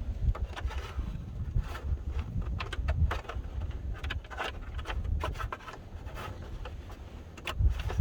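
Handling noises as someone works by hand at a pickup's dash and door switch: irregular clicks, knocks and rubbing over a low rumble.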